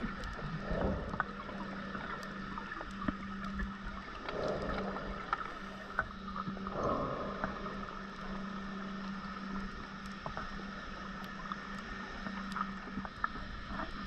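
Underwater sound heard through a camera housing: a diver's scuba regulator venting exhaled bubbles in three bubbly bursts, about one, four and a half and seven seconds in, over a steady low hum and scattered faint clicks.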